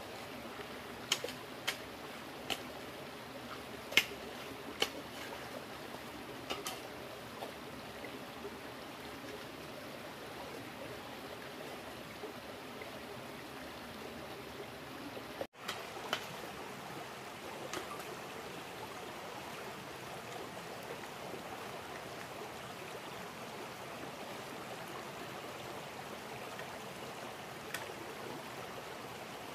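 Water flowing steadily in a stream, with a scattering of sharp clicks and knocks over roughly the first quarter. The sound briefly cuts out about halfway through.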